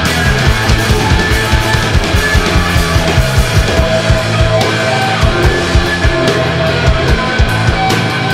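Live rock band playing loudly, with guitar over busy, driving drums.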